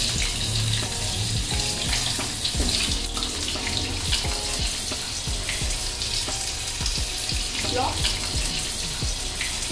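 Chicken cubes coated in rice flour and cornflour deep-frying in hot oil: a steady sizzle with scattered small crackles and pops.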